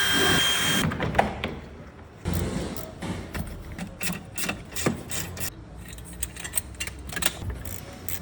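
A short hiss with a thin steady whistle in the first second, then a run of irregular clicks and knocks, like tools and parts being handled in a workshop.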